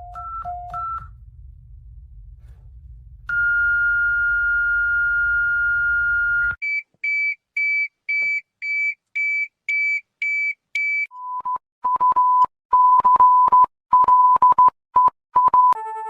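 Electronic emergency-alert tones in sequence: a few quick beeps alternating between two pitches over a low hum, then one steady tone held about three seconds. Next comes a run of about nine short, higher beeps, roughly two a second, and finally a lower single tone keyed on and off in an irregular, Morse-like pattern.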